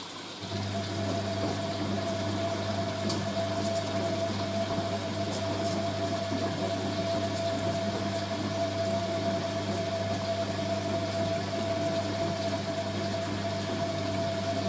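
Hoover A3060 washing machine's drain pump running with a steady mains hum, starting about half a second in, as it pumps out water during the dilution rinse that cools the boil-wash water.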